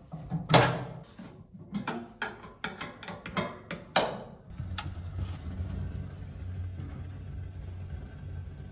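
Sharp, irregular clicks and knocks from working the gas valve and pilot assembly of an old gas heater while lighting the pilot. From about four and a half seconds in they give way to a steady low rumble.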